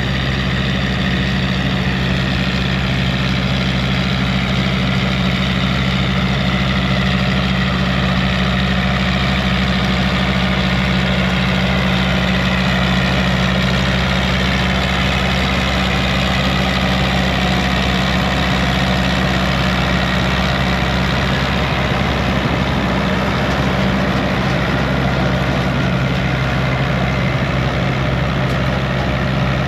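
Tractor's diesel engine running steadily at a constant low speed, with a deep even hum.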